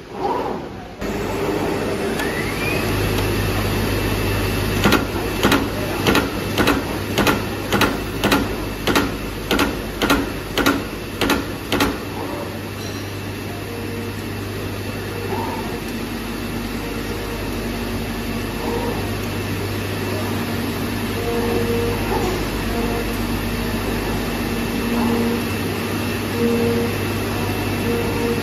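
Digital CNC flatbed cutting machine running with a steady low hum and a faint high whine, while its punching tool strikes about a dozen sharp clacks, roughly two a second, as it punches a row of small holes in the sheet; the clacks stop about halfway through and the hum carries on.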